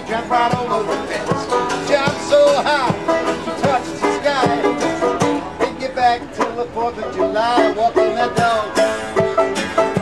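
Banjo and twelve-string acoustic guitar playing an instrumental break of a blues number in skiffle style, with brisk plucked banjo notes over strummed guitar.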